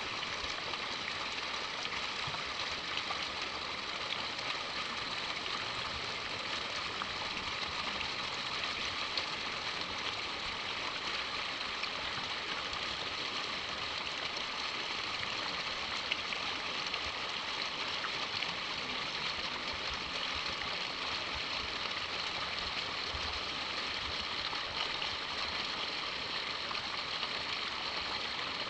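Steady, even outdoor background hiss, like running water, with no distinct events.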